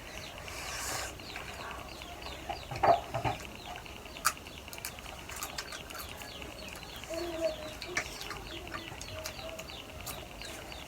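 Domestic chickens calling in the background, a rapid run of short high chirps throughout with a few lower clucks about seven seconds in, and scattered sharp clicks of eating and utensils.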